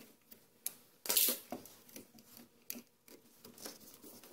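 Small clicks and a brief scrape from handling the neutral wire and the duplex outlet as the wire loop is hooked under the outlet's terminal screw; the loudest scrape comes about a second in.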